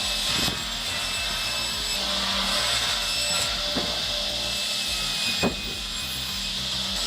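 Firewood saw cutting through wood with a steady hiss, broken by a few brief knocks, the loudest about five and a half seconds in.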